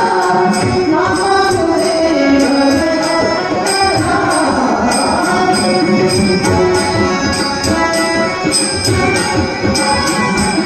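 Marathi devotional bhajan music: a harmonium plays sustained melody while a hand drum and small hand cymbals strike a steady, quick beat.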